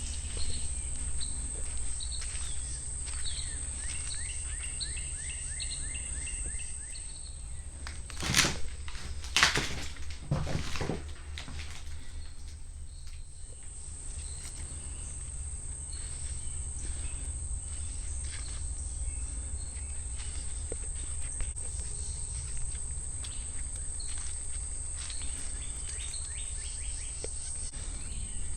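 Outdoor ambience: a bird chirping in quick repeated notes during the first several seconds, over a steady high insect drone and a low rumble. Between about eight and eleven seconds in come three or four short, loud sounds.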